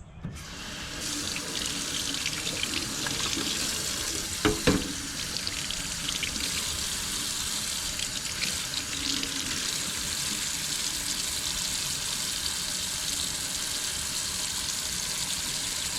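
Water running from a sink faucet as folding knives are rinsed under it to wash the cleaning soap off, starting about half a second in and running steadily. A single knock about four and a half seconds in.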